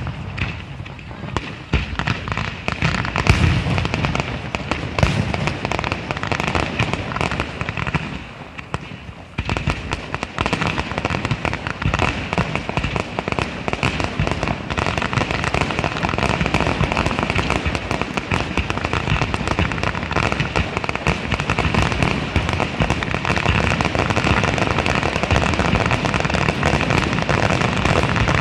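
Fireworks display: separate shell bangs with crackle for the first several seconds, a short lull at about nine seconds, then a dense, continuous crackling barrage.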